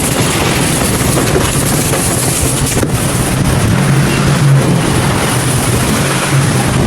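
Loud steady machine noise: a low motor hum under an even hiss, with no break.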